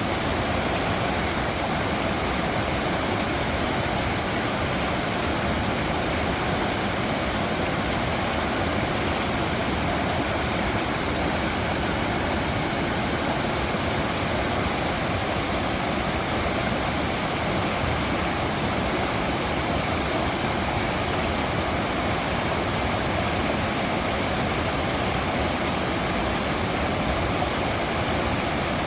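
Mountain valley stream flowing, a steady, even rush of water with no change throughout.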